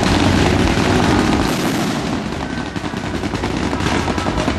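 Fireworks display: a rapid barrage of aerial shells bursting, many bangs a second in a dense run, slightly softer around the middle.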